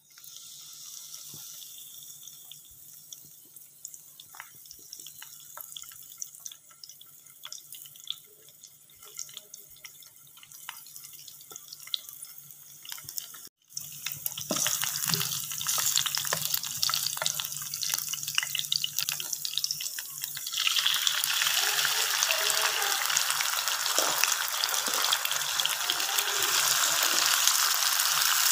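Hot oil sizzling and crackling in a non-stick frying pan, first gently around lemongrass, bay leaves, kaffir lime leaves and galangal. About halfway through the sizzle becomes much louder, and louder again about two-thirds through, as chopped chilies and shallots fry and are stirred with a spatula.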